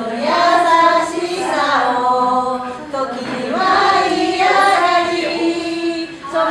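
A woman singing a Japanese song unaccompanied, holding long notes that glide from one pitch to the next.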